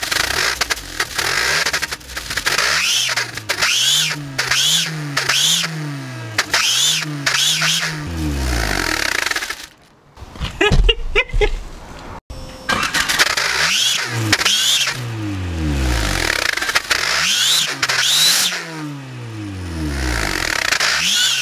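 Skoda Fabia engine revved in quick repeated blips, each one rising and falling in pitch, with the party blowers stuffed in its tailpipe buzzing and whistling along with every rev. The revs stop briefly about halfway through, then carry on.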